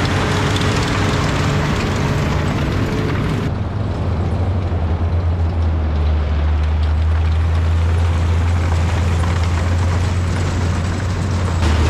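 Maybach HL42 six-cylinder petrol engine of a WWII German FlaK halftrack running steadily under way, a strong low drone. The higher-pitched noise cuts out suddenly about three and a half seconds in, leaving mostly the low engine drone.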